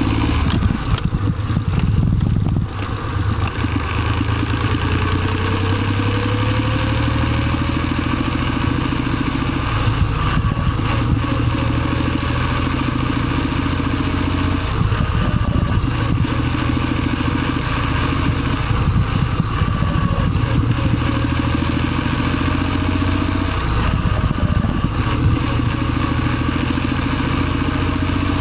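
Suzuki Celerio engine idling steadily with the gearbox's friction noise over it, a thin whine that slowly climbs in pitch several times. This is the gearbox rubbing noise being shown as the fault.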